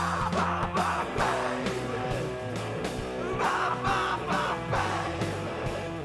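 Background rock music with guitar and a steady beat.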